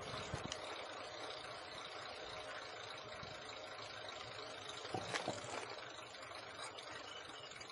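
Steady road traffic noise, an even rush of passing and idling motor vehicles.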